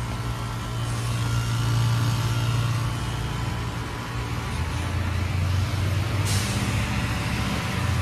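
Heat pump outdoor units in a defrost cycle, the compressors humming steadily. About six seconds in, a sudden hiss sets in and then fades.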